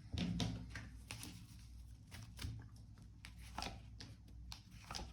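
Tarot cards being handled: quiet, irregular flicks and taps of the cards as they are shuffled and drawn.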